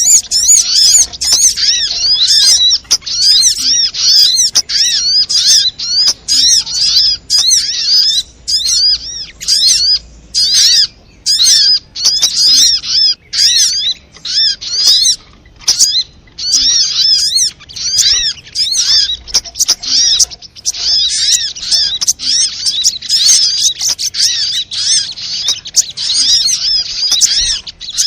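Sogon (sogok ontong) songbird calling as a lure track: rapid, high twittering chirps in long runs of several notes a second, broken by short pauses.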